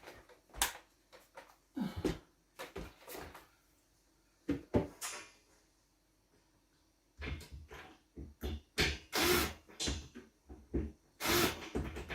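Scattered knocks, clicks and short rattles of hand work with tools on a metal ceiling pot rack, growing busier from about seven seconds in.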